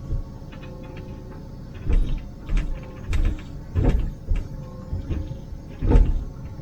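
Liebherr 904 wheeled excavator heard from inside its cab: the diesel engine and hydraulics run steadily with a held whine. From about two seconds in there is a run of heavy clunks and knocks as the machine digs, the loudest near the end.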